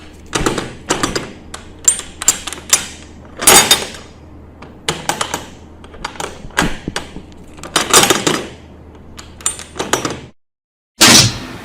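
Metal objects clinking and clattering: a long string of irregular sharp hits and rattles, some in quick clusters. After a short silent gap, one more brief metallic clatter near the end.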